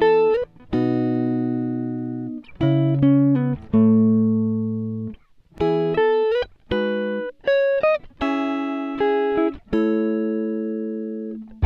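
Background music: slow chords and single notes, each struck and left to ring out and fade.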